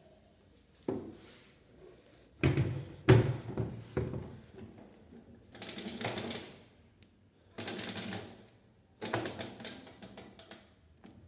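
Irregular clatter of knocks and clicks, with several short scraping or rustling bursts in between; the heaviest knocks come a few seconds in.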